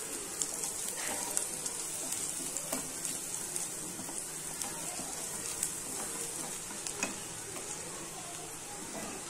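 Chopped garlic and ginger frying in oil and butter in a nonstick pan: a steady sizzle with scattered small pops, and a wooden spatula stirring and scraping the pan. The garlic is being fried until it changes colour.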